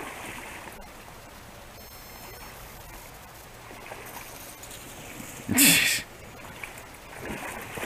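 Creek water flowing and lapping against floating ice, a faint steady rush. About five and a half seconds in there is a short loud burst of sound.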